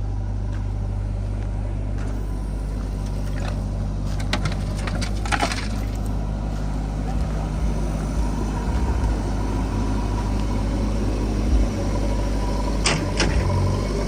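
A diesel engine running steadily with a low hum, with a few sharp knocks about four to five seconds in and again near the end.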